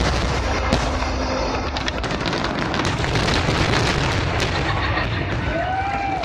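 Aerial fireworks shells booming, with a continuous low rolling rumble and a few sharp reports on top of it.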